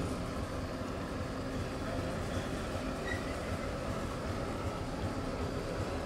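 Steady low rumble of a small passenger boat's motor running as the boat moves across the lake, mixed with wind buffeting the microphone.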